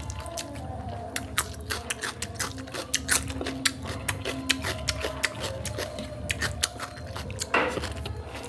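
Close-miked chewing of crisp raw cucumber: an irregular run of sharp crunches several times a second, with a louder one near the end.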